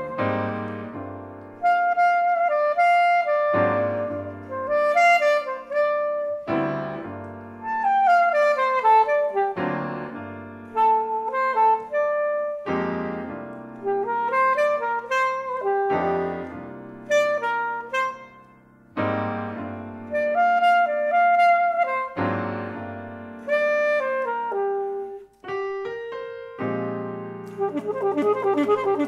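Alto saxophone and piano duo playing chamber jazz. Piano chords are struck about every three seconds and left to ring and fade, with falling lines of notes over them, and a fast trembling figure comes in near the end.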